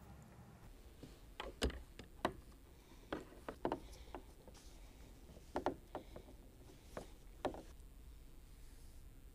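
Light knocks and clacks on a fishing kayak, single or in quick pairs every second or so, over faint steady background noise.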